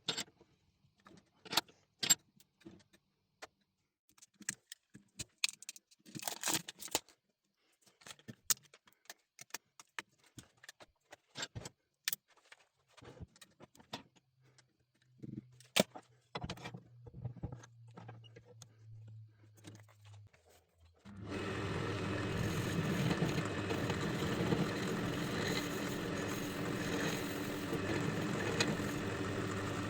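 Scattered clicks and knocks of things being handled. About two-thirds of the way in, a workshop machine motor comes on suddenly and runs steadily and loudly.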